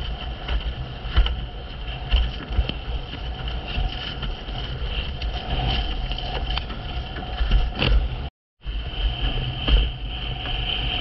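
Wind buffeting the microphone and water rushing as a windsurf board planes over choppy sea, with frequent sharp slaps of the board on the chop. The sound drops out completely for a moment about eight seconds in.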